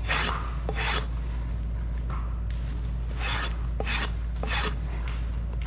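Fine side of a steel hoof rasp scraping across a pony's hoof wall in separate strokes: two at the start, a pause of about two seconds, then three more in quick succession.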